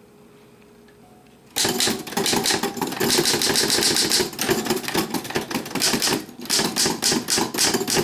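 L C Smith Super Speed manual typewriter being typed on quickly: a fast, even run of typebar strikes against the platen starts about a second and a half in, with a brief pause near three-quarters through.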